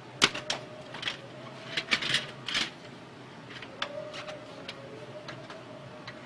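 Canon G2000 inkjet printer mechanism working: a run of sharp clicks and clatters, thickest in the first three seconds, then scattered ticks, over a faint steady motor whine.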